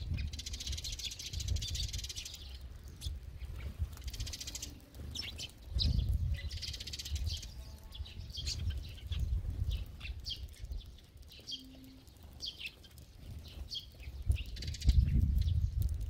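A large flock of Eurasian tree sparrows chirping as they feed on the ground, in runs of quick short chirps that come and go, with low fluttering bursts of wingbeats as birds take off and land.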